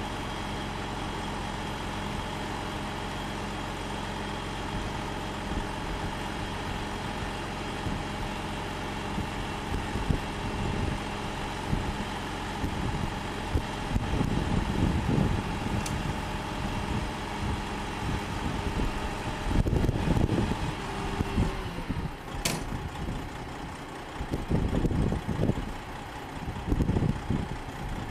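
Diesel engine of a log truck idling steadily. In the second half, louder irregular low rumbles come and go over the idle, and there is a single sharp click about 22 seconds in.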